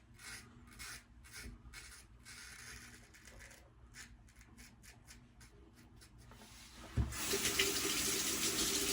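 Faint short scraping strokes of a razor on stubble, then a sink tap turned on about seven seconds in, water running steadily into the basin.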